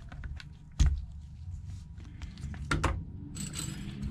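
Small hard knocks and clicks from the opened iPhone and metal repair tools being handled on a work mat. The loudest knock comes about a second in, with two more close together near three seconds, then a brief rustle.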